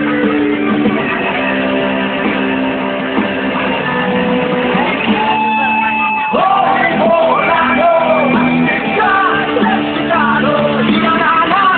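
Guitar strummed while a voice sings along, with a shout or two from the group.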